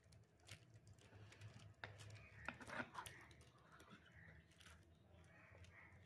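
Near silence, with a few faint clicks and scrapes from a spatula working thick cake batter out of a bowl into a paper-lined cake tin, mostly in the first half.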